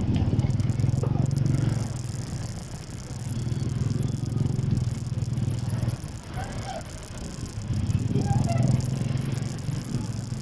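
Small motorcycle engine running while riding, a low drone that swells and eases a few times as the throttle changes.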